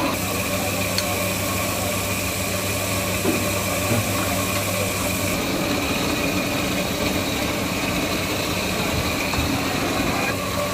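A steady machine hum over a constant noisy background; the deepest part of the hum stops about five seconds in.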